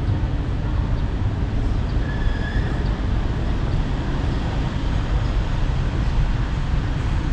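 Steady low rumble of outdoor street ambience, with a faint brief high tone about two seconds in.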